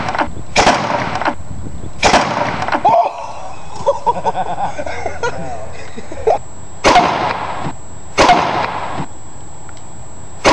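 Spud gun firing: four sharp bangs, each with a short hissing tail, at irregular spacing.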